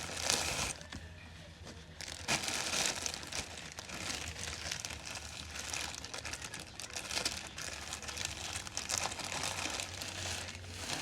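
Wig packaging crinkling and rustling as it is handled and unwrapped, in an irregular run of crackles with a brief lull about a second in.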